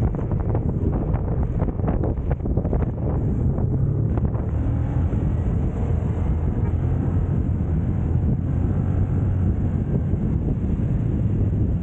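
Motorcycle running at speed down the road, a steady low rumble with wind rushing over the microphone. A few short knocks in the first four seconds, then even running.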